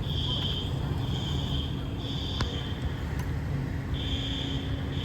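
Building fire alarm sounding the temporal-three evacuation pattern: three high-pitched beeps about a second apart, a pause, then the next set starts, over a steady low rumble.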